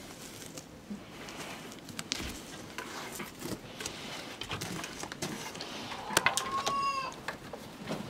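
Scattered scratching and ticking of a stick poking through loose dirt and straw. About six seconds in, a chicken gives one short call that rises and then holds level.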